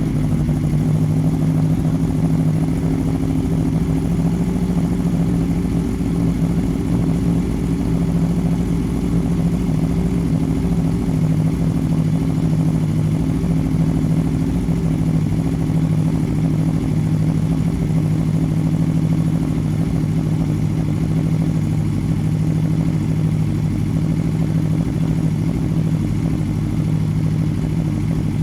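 Aprilia Tuono V4 R APRC's V4 engine idling steadily through an SC Project GP2 slip-on exhaust, with no revving.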